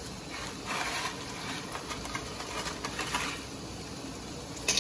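Water at a rolling boil in a stainless steel pot, bubbling and hissing unevenly as a bundle of dry spaghetti stands in it. There is a short knock near the end.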